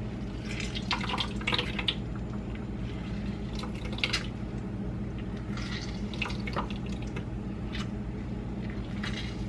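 Fresh lemon juice dripping and splashing into a bowl of melted butter as a whole lemon is squeezed by hand, in scattered small drops, over a steady low hum.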